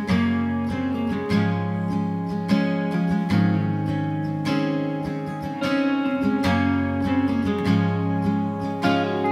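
Background music: an acoustic guitar strummed in a steady rhythm, chords changing every few strums, with no singing.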